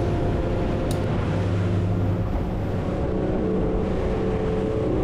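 Boat's outboard engine running steadily at cruising speed, a continuous drone, with a rush of wind and water as the hull runs across open sea.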